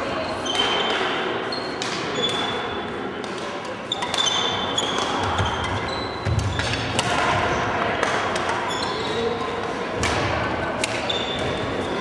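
Badminton rally: sharp racket strikes on the shuttlecock and many short squeaks of court shoes on the wooden floor, with thuds of footwork, echoing in a large sports hall.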